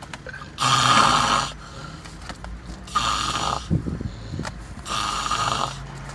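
A person snoring in a regular rhythm: three snores about two seconds apart, each under a second long.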